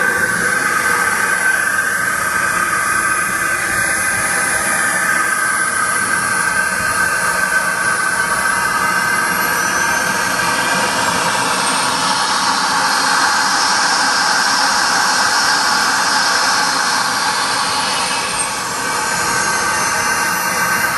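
SWB Mamba model jet turbine running on the ground in a BVM F-16 model: a loud steady jet hiss and whine. About nine seconds in the high whine rises as the turbine spools up, then falls back toward idle near the end.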